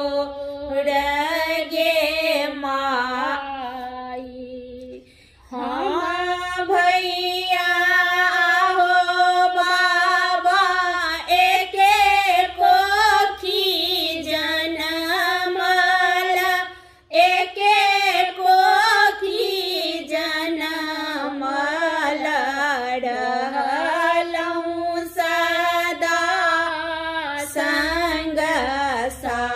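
Two women singing a Maithili kanyadan (bride-giving) wedding song together, without instruments. The singing breaks off briefly about five seconds in and again about seventeen seconds in.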